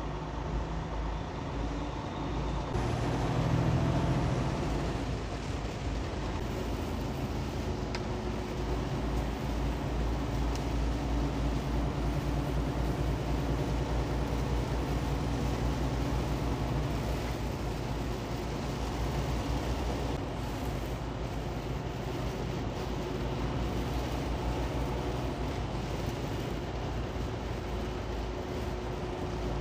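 Inside a moving semi-truck's cab: the engine's steady low drone under a constant hiss of tyres and spray on a rain-soaked highway.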